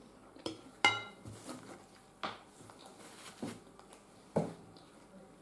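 Metal spoon clinking against a large ceramic bowl, about five separate clinks, one about a second in ringing briefly.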